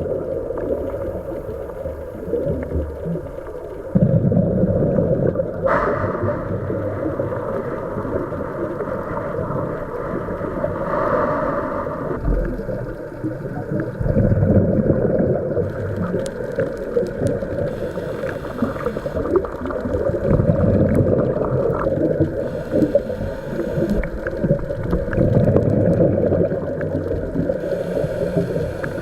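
Underwater sound picked up by a camera during a scuba dive: a continuous muffled rumble of the water, with hissing bursts of a diver's exhaled regulator bubbles at intervals in the second half.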